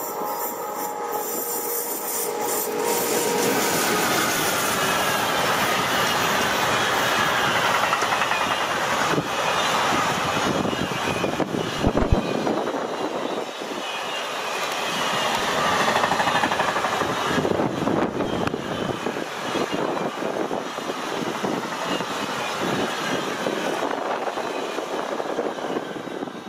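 Freight train of loaded double-deck car-carrier wagons passing close by: a steady clatter of wheels on the rails, with one sharp knock about twelve seconds in.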